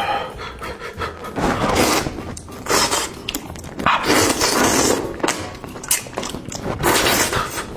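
Loud slurping and sucking mouth sounds of someone eating, in irregular bursts of up to a second with short wet clicks between.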